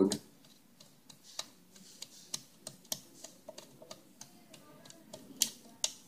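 Number wheels of an Ebco 4-digit combination lock clicking as they are turned by hand, with the reset key stick pressed in to recover the set passcode: a run of light, irregular clicks, with two louder clicks near the end.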